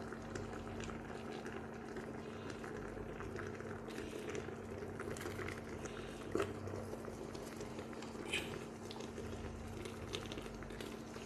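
Chicken simmering in a large metal pot, with a metal spoon scraping and knocking against the pot as the pieces are turned over, a couple of sharper knocks among the small clicks. A steady low hum runs underneath.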